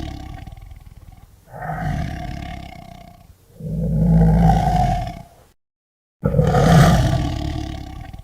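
Tiger roaring: a fading roar, then three more deep roars, each swelling and dying away, with a brief silence before the last.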